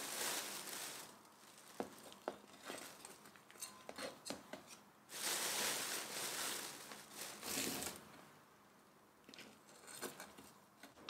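A plastic repotting mat crinkling and loose potting soil being gathered and poured into a resin flower pot with a trowel, in two long rustling spells, about a second in and again around the middle, with scattered light clicks and taps of the trowel in between.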